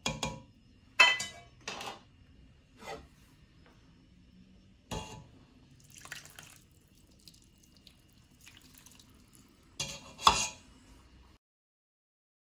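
Metal clinks and clanks of utensils and cookware against a stainless steel cooking pot, a handful of separate strikes with short ringing. The loudest come about a second in and about ten seconds in, and the sound cuts off suddenly near the end.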